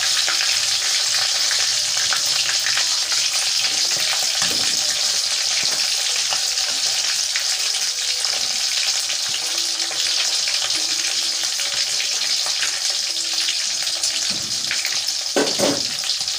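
Chicken pieces deep-frying in hot oil in a wok: a steady loud sizzle as the moisture cooks out, with scattered light clicks of metal tongs turning the pieces and a brief knock near the end.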